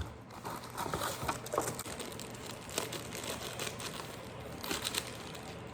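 Faint rustling and light clicks and knocks of kitchen items and packaging being handled, over a low steady hum.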